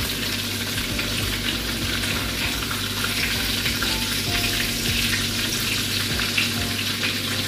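Egg batter for telur gulung frying in hot oil in a wok: a steady sizzle with fine crackles.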